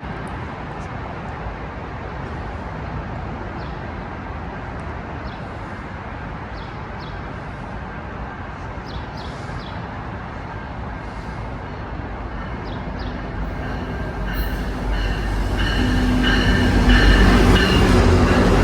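GO Transit diesel commuter train approaching, its rumble swelling over the last third and loudest near the end, where several steady tones ring out above it.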